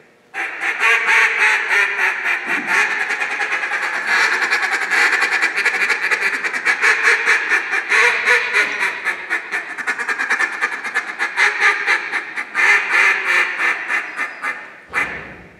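J.J. Lares duck call blown in a live-duck contest routine, imitating a hen mallard: a fast, unbroken run of short, rhythmic quacking notes that starts about half a second in and stops shortly before the end.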